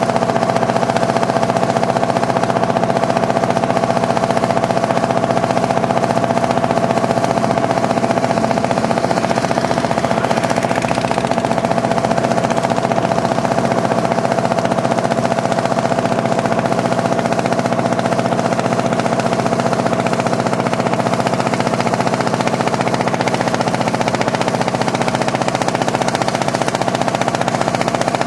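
Small motorboat's engine running steadily at a constant speed, a rapid, even putt-putt with a steady hum.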